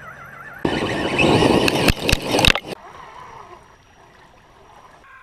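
Water splashing loudly for about two seconds as an RC crawler truck drives through mud and water, with a few sharp clicks in it. A warbling electronic tone fades out just before the splashing begins.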